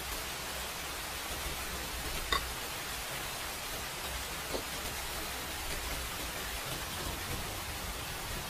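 Steady hiss throughout, with one sharp clink of a metal spoon set down against the bowl a little over two seconds in and a fainter tick about two seconds later.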